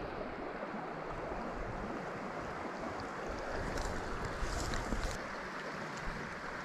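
Steady rush of creek water, with wind buffeting the microphone in low gusts.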